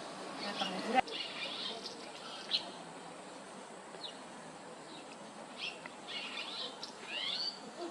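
Red-rumped swallows calling: scattered short twittering chirps, with a run of rising calls near the end. A single sharp click about a second in.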